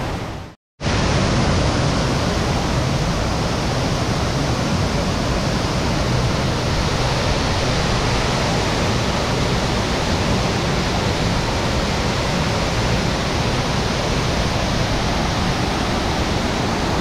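Steady, loud rushing of a waterfall, with a brief break in the sound about half a second in.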